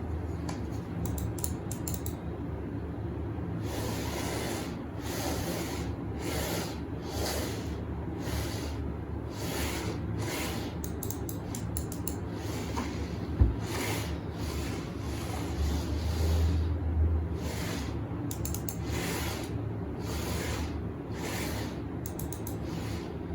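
Repeated rubbing strokes, one to two a second, over a low steady hum, with short runs of rapid light clicks and one sharp knock about halfway through.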